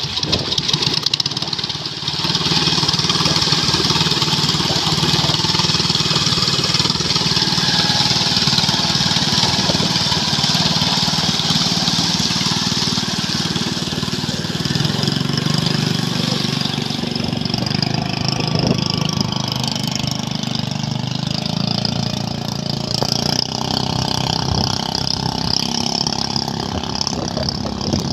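Diesel engine of a large coal-carrying cargo ship passing close by, a steady low drone under a continuous high hiss, growing louder about two seconds in.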